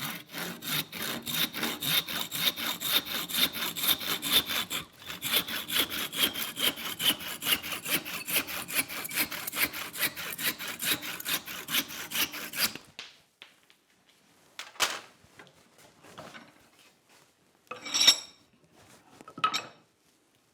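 A saw cutting through a wooden hammer handle in quick, steady back-and-forth strokes, with a short pause partway through and a faint ringing tone that slowly falls in pitch. The sawing stops about two-thirds of the way in, followed by a few separate knocks, one of them loud.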